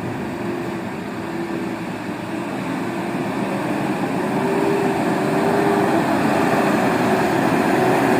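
A heavy truck on the road drawing closer, its engine and tyre noise growing steadily louder, with a faint wavering hum underneath.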